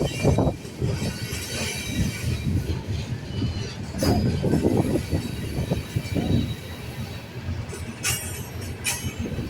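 Freight train rolling past: a steady rumble of rail cars on the track, with steel wheels squealing against the rail, in brief sharp bursts about four seconds in and twice near the end.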